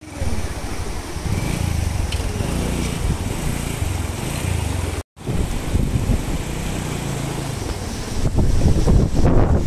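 Cyclone wind buffeting the microphone, a rough, uneven rumble, cut off for a moment about halfway through and louder near the end.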